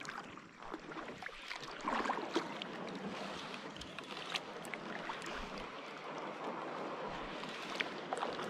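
A kayak being paddled on calm water: a steady watery hiss with small splashes and light ticks from the paddle strokes.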